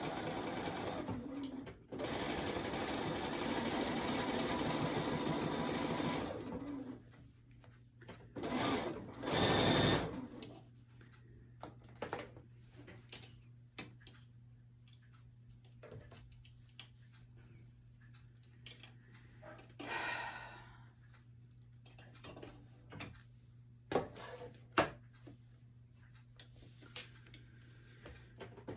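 Bernina sewing machine running steadily, stitching binding on through its binder attachment, then stopping about seven seconds in. After that come short rustles and a few sharp clicks over a steady low hum.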